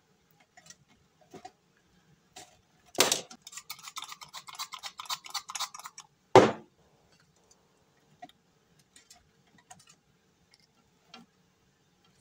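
Kitchen tongs knocking and scraping in a nonstick air fryer basket, prying loose falafels stuck to the bottom. There is a sharp knock about three seconds in, then a few seconds of rapid clicking and scraping, then another loud knock, followed by a few faint ticks.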